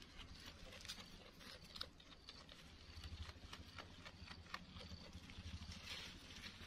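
Faint, irregular crisp clicks and leaf rustling: a young goat tearing and chewing leaves from a hand-held bunch.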